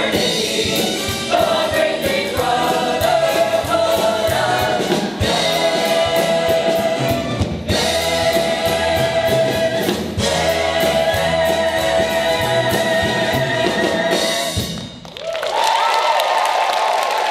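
Ensemble cast singing a show tune in chorus with instrumental accompaniment, building to a final note that cuts off sharply near the end. The audience then breaks into applause and cheers.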